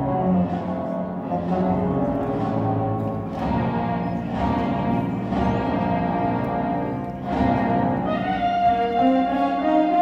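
Orchestral film score playing over cinema speakers: held notes with a struck beat about once a second.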